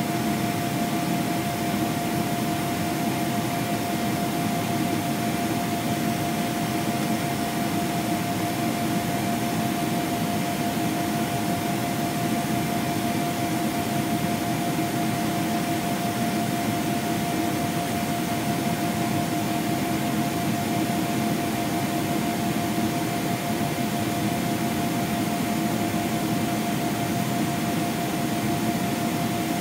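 Steady cabin noise of a Boeing 777-300ER airliner in flight: an even roar of engines and rushing air with a constant hum running through it.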